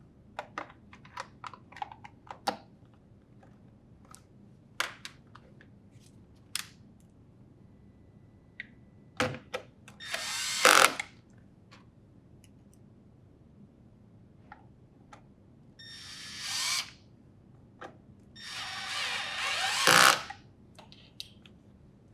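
Cordless drill driver running in three short bursts, driving in the screws that hold a refrigerator door hinge cover; the last two runs rise in level. Before them, a string of sharp clicks and taps as the plastic hinge cover is snapped into place and handled.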